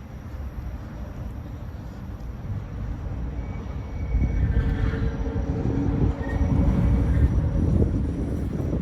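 A Tobu Skytree Line train crossing the railway bridge right beside the walkway: a low rumble of wheels on the bridge that grows louder about four seconds in, with faint high tones above it.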